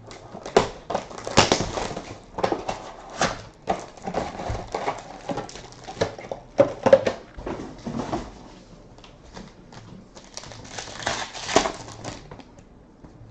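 Plastic and foil wrapping of a trading card box and its packs crinkling and tearing as they are ripped open by hand: a long run of irregular crackles and rustles, with longer tears about a second and a half in and again near the end.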